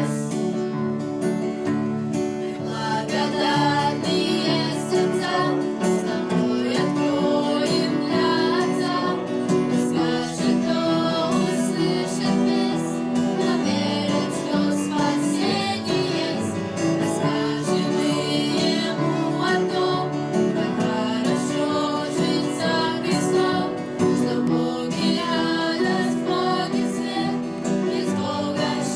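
Voices singing a song with acoustic guitar accompaniment.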